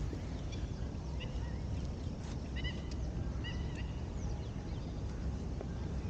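Three short, high bird calls about a second apart over a steady low rumble.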